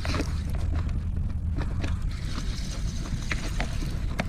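Steady low rumble of wind buffeting the microphone, with scattered light clicks.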